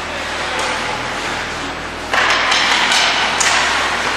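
Ice hockey play: skates scraping the ice and sharp clacks of sticks and puck. The noise gets louder about two seconds in, with a hiss of skate blades and several quick clacks.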